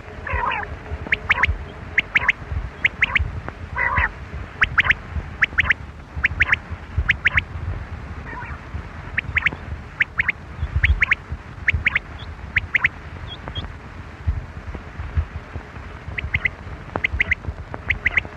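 Quail calling over and over: short, sharp notes in quick pairs and triplets, about once a second, over a low rumble.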